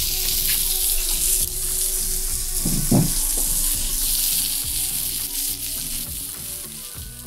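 Broccoli florets sizzling as they sauté in hot olive oil in a nonstick frying pan, with a spatula stirring them near the end. The sizzle is steady, then dies down over the last second or two.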